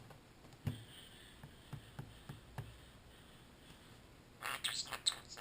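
Quiet, scattered single clicks and taps, then a quick flurry of sharp clicks about a second before the end.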